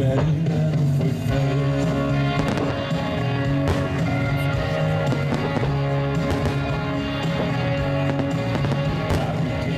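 Music with long held notes plays throughout, overlaid by fireworks: scattered sharp bangs and crackles from aerial shells bursting at intervals.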